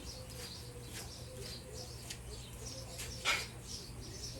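Small birds chirping over and over in short, high calls, with a single sharp knock about three seconds in and a steady low hum underneath.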